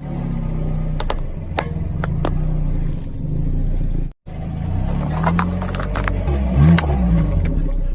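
Car engine running slowly while its tyres roll over objects, with a series of sharp cracks and crunches as they break under the wheels. A brief cut to silence about four seconds in, then more engine noise and crunching.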